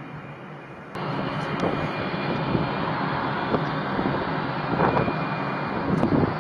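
Four General Electric F101 turbofan jet engines of a B-1B Lancer running as it taxis: a loud, steady rush with a thin high whine, which comes in abruptly about a second in. Irregular gusts of wind buffet the microphone.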